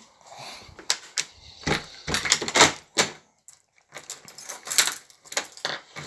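A bunch of keys jangling and clinking against a door's metal security chain, with clicks and knocks from handling the door. The clicks come in an irregular run, with a short pause a little after three seconds in.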